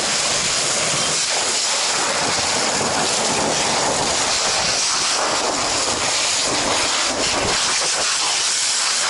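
Fire hose nozzle jetting a straight stream of water onto burning debris: a steady, loud hiss of the water jet mixed with steam from the hot debris.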